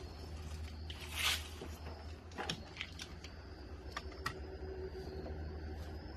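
Handling noises from a portable jump starter being taken out and readied: a rustling swish about a second in, then several sharp clicks, over a steady low hum.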